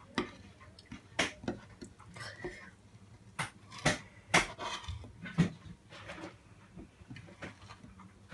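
Metal spatula scraping and clicking on a smooth cooker top while spreading and gathering melted chocolate to temper it by tabling: irregular sharp clicks and short scrapes, a few of them louder.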